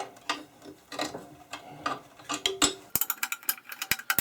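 Ratchet wrench clicking in irregular strokes while loosening the sander's motor-mount bolts, with a quicker run of clicks near the end.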